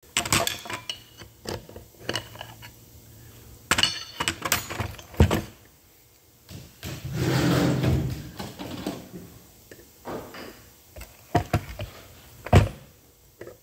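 Metal hand tools and parts of an electric brake motor clinking and knocking on a workbench during disassembly, with a longer scraping rub about seven seconds in and a sharp clank near the end.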